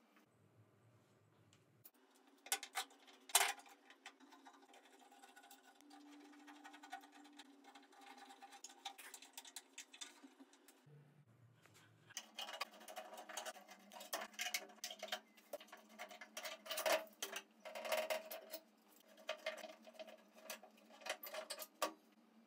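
Metal bar clamps and F-clamps being handled on a small wooden table frame: fitted, slid and tightened, then loosened and taken off. The clicks, rattles and knocks are faint, with a few sharp clicks in the first half and a denser run of clatter from about halfway.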